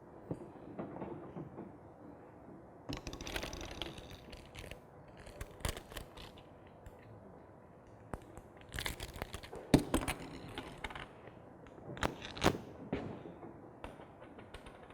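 Pipe and fittings being handled and joined: scattered clicks, knocks and short scraping sounds. The loudest is a sharp knock about ten seconds in.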